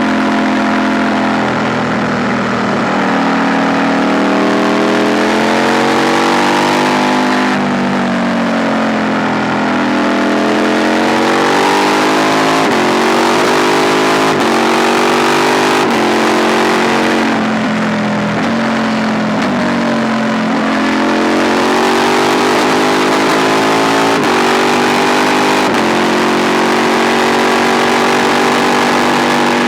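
KTM 890 Duke R parallel-twin engine on the move, its note rising and falling with the throttle and stepping down sharply at several gear changes, over a steady hiss of noise.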